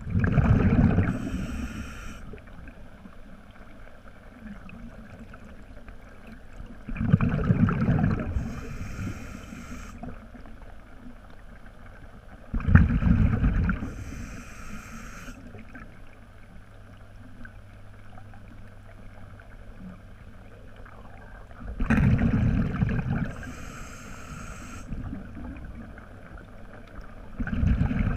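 Scuba diver breathing through a regulator underwater: each breath is a low rumble of exhaled bubbles followed by a short hiss of the inhale, five times, every six to nine seconds.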